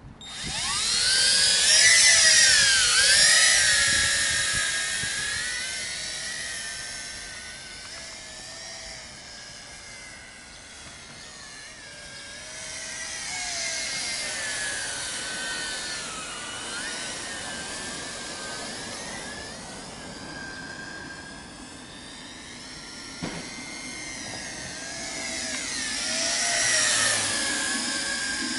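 Tarantula X6 toy drone's propellers whining as it spins up about a second in and lifts off, then flies around; the high buzzing pitch wavers up and down with the throttle. The sound fades as the drone climbs away and grows loud again as it passes back close, near the end.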